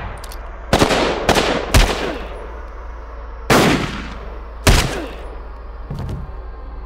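About five revolver shots, each a sharp crack with a ringing tail, coming at uneven intervals over a steady low hum.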